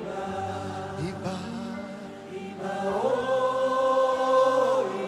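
Slow worship chant: voices singing long held notes over steady sustained accompaniment, with the loudest held note in the second half.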